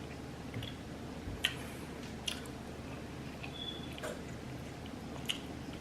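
Close-miked chewing of deep-fried king crab leg meat, soft and wet, with a few sharp mouth clicks along the way.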